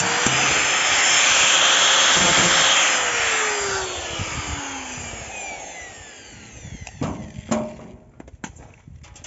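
Power saw cutting sheet metal, then switched off: about three seconds in the cutting noise stops and the motor winds down in a falling whine. Two sharp metallic knocks follow near the end.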